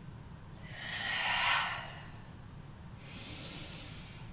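A woman breathing deeply and audibly: a long exhale about a second in, the loudest sound, then a fainter, hissier inhale near the end.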